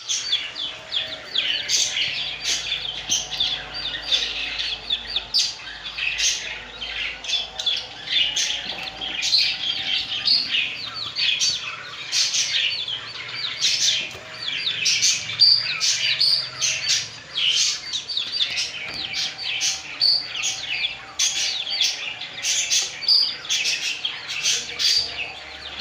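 Many budgies and lovebirds chirping and chattering continuously, their short high calls overlapping without a break.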